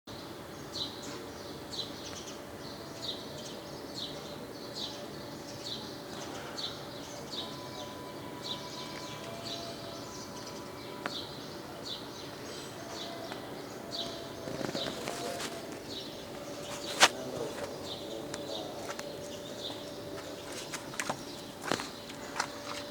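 A bird chirping over and over, about once a second, over a faint steady hum. There is one sharp knock about two-thirds of the way in and a few clicks near the end.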